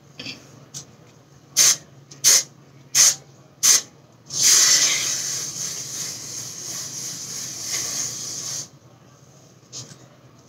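Aerosol hairspray can sprayed onto slicked-back hair: four short puffs about two-thirds of a second apart, then one long spray of about four seconds.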